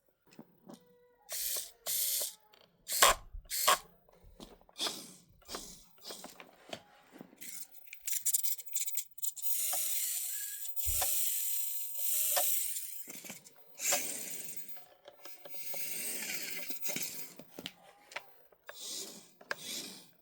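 Tiny electric motor and plastic gears of a 1/64 micro RC car whirring in short bursts of a second or two, with clicks and knocks in between.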